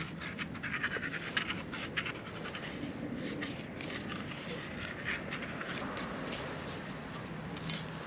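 Irregular scratching and scraping of hand tools working a thin copper sheet being made into a cylinder-head gasket, with a sharp click near the end.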